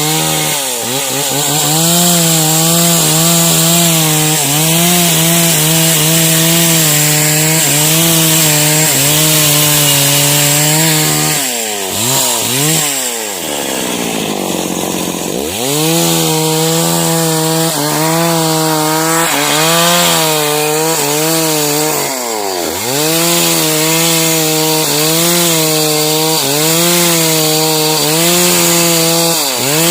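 Stihl MS 381 two-stroke chainsaw running at high revs and cutting sengon wood, its pitch dipping again and again as the chain loads in the cut. About twelve seconds in the revs drop away for a few seconds, then climb back to full speed.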